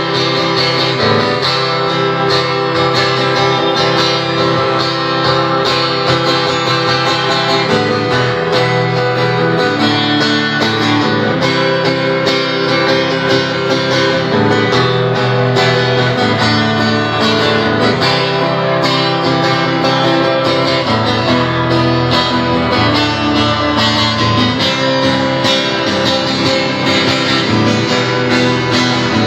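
Instrumental break in a song: guitar playing chords and notes, with no singing.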